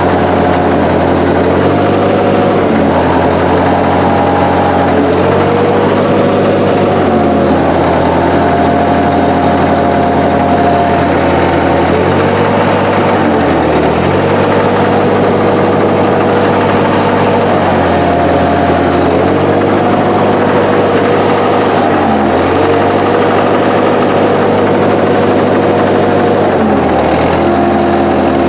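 Massey Ferguson 202 Work Bull's four-cylinder Continental Z134 engine running steadily while the backhoe hydraulics are worked. The upper pitch drops and recovers every few seconds as the load comes on and off.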